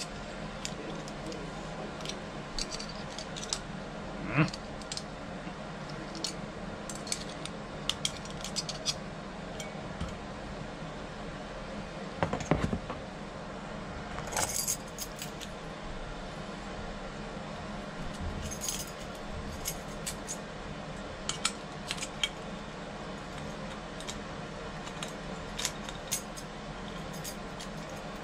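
Small metal clicks and clinks of a storeroom-function door knob lockset being handled and fitted, with a ring of keys jangling; a louder knock about twelve seconds in. A steady low hum runs underneath.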